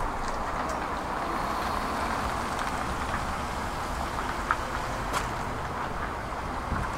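Old Hitachi UH081 excavator's diesel engine running steadily, with occasional sharp clicks and knocks, the loudest about four and a half seconds in.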